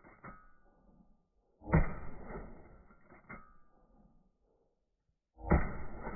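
Remington 11-48 semi-automatic shotgun firing, slowed down: two low, dull shots about four seconds apart, each dying away over a second or so and followed by a sharper clack.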